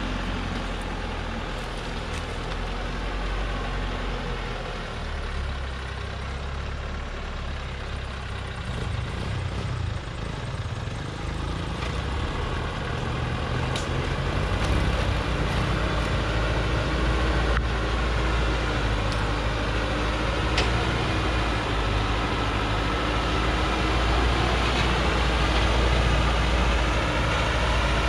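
Loaded Hoa Mai log truck's engine labouring as the truck crawls over rocks in low gear, steadily growing louder as it comes closer. A steady whine rides over the engine note from about halfway, with a couple of sharp knocks.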